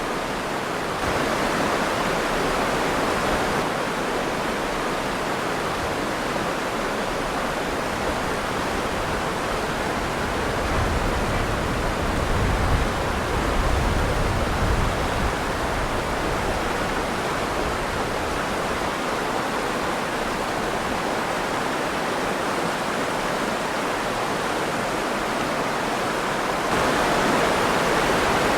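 River water rushing and splashing in a steady, full rush, with a deeper low rumble swelling for a few seconds near the middle.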